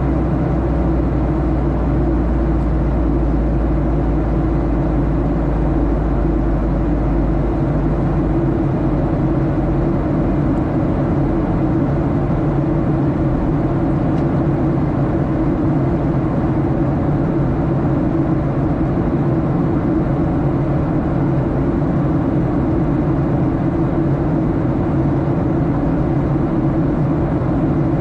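Steady cabin noise of an airliner descending on its arrival: jet engine and airflow rumble heard from inside the passenger cabin. The deepest hum turns rougher about seven seconds in.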